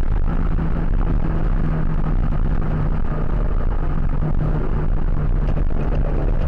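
Toyota 86's flat-four engine droning steadily at speed, heard from inside the car over loud road and wind noise.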